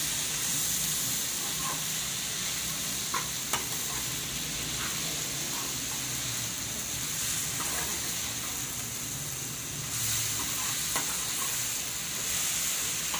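Bitter gourd, onions, tomatoes and green chillies frying in ghee in a steel pan, sizzling steadily while a slotted metal spoon stirs and scrapes them. There are a few sharp clicks of the spoon against the pan, twice about three seconds in and once near eleven seconds.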